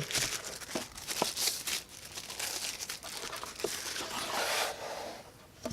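Packaging being unwrapped, crinkling and rustling with a few light clicks and knocks, as a folding knife is taken out of its box; the crinkling stops near the end.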